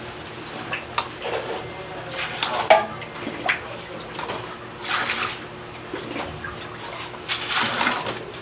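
Liquid ingredients poured and splashed into flour in a steel dough-mixer trough, in irregular short swishes, with a few sharp clinks of the container, the loudest about a third of the way in.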